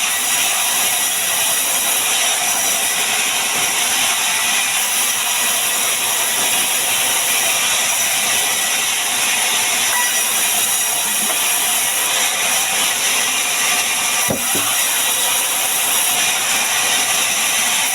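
Steady, even hissing noise with no rhythm, and a single short knock about fourteen seconds in.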